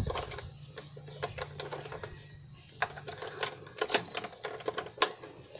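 Irregular light clicks and rattles of a plastic convenience outlet and its copper wires being handled, as stripped wire ends are pushed into the outlet's terminals.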